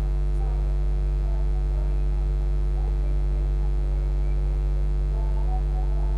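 Steady low electrical hum, even in level throughout, with faint wavering tones above it.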